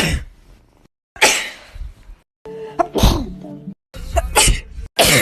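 Several human sneezes in quick succession, each a sharp explosive burst with a breathy tail. Abrupt cuts with brief silence fall between them.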